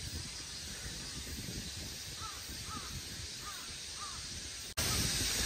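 A bird calling four times, short arched calls about half a second apart, over a steady outdoor background noise. Near the end the background noise steps up suddenly and gets louder.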